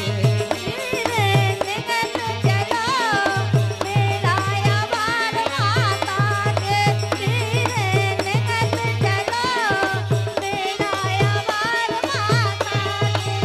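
A woman sings a devotional folk melody, with long ornamented high notes, over harmonium. A hand drum keeps a steady, quick beat, and a wooden frame of metal jingles is shaken along with it.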